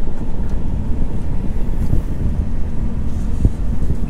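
Low, steady rumble of a motorhome's engine and running gear heard from inside the cab as it rolls slowly across a lot, with a single knock about three and a half seconds in.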